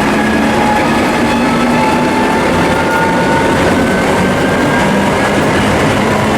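Suburban train hauled by a 2TE116 diesel locomotive, rolling steadily; the engine's tones rise slowly in pitch as it gathers speed.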